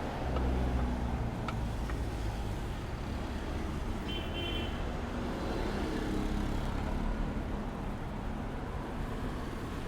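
Street traffic: vehicle engines rumbling low and steady, with a brief high-pitched tone about four seconds in.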